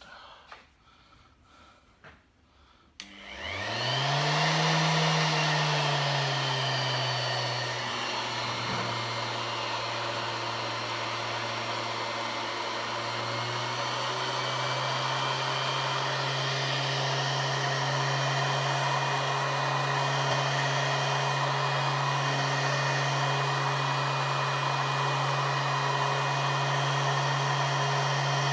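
Electric random orbital sander with a lambswool buffing pad switched on about three seconds in, its motor spinning up with a quick rising whine, then running steadily while it buffs wax on a pine table top.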